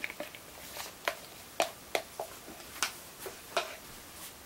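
Stir stick clicking and scraping against the inside of a cup of mixed epoxy resin as it is stirred: irregular sharp ticks, a few each second.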